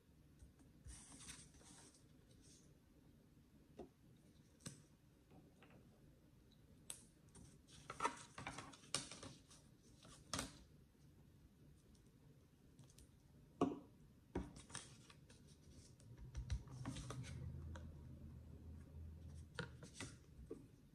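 Faint, scattered rustles and clicks of construction paper and tape being handled during paper crafting, in short irregular bursts.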